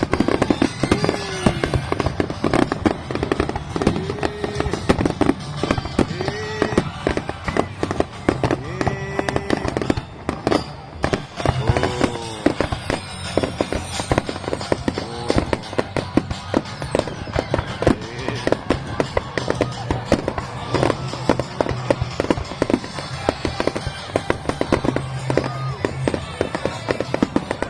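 Fireworks bursting in rapid succession, a dense run of bangs and crackling, with music playing alongside.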